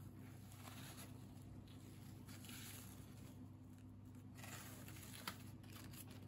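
Faint rustling and crumbling of brittle, porous carbon snakes from a sugar and baking soda reaction as they are handled, in several short stretches with a small click about five seconds in, over a low steady hum.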